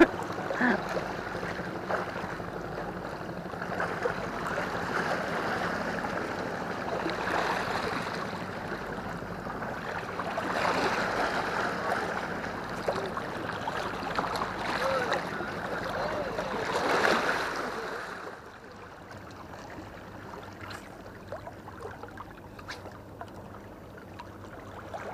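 Sea water lapping and splashing against rocks below, in uneven surges that die down about eighteen seconds in.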